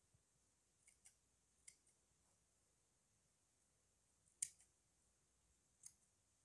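Large tailoring scissors snipping cloth into tiny scraps: a handful of faint, short snips scattered through otherwise near silence, the loudest a little past four seconds in.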